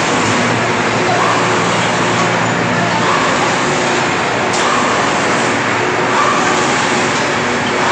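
Steady din of a tractor assembly plant floor: continuous machinery noise and hum, with some distant voices mixed in.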